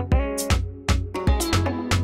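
Background music with a steady beat and sustained pitched notes, in an Afrobeat style.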